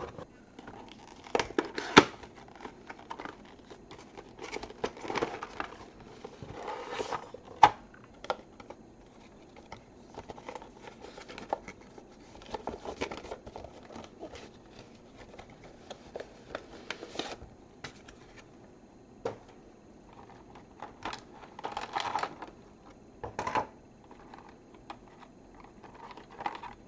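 Hands handling small parts on a work bench: irregular rustling and crinkling with scattered clicks and taps. The sharpest click comes about two seconds in, with another near eight seconds, and there are rustling clusters around five, thirteen and twenty-two seconds.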